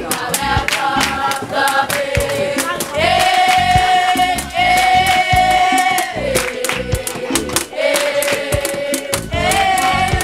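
Music with singing voices held on long notes over a steady beat.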